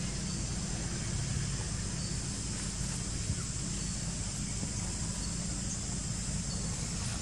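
Steady outdoor background noise: a constant low rumble with a fainter even hiss above it and no distinct event. The monkeys make no audible sound.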